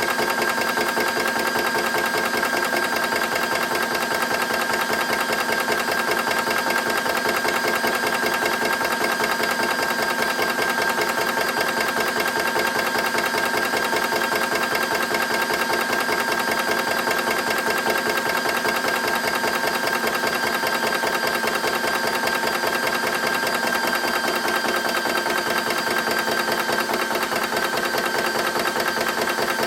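Rover Mini direct-fill PCP air compressor running steadily: a fast, even mechanical chugging with a steady whine over it.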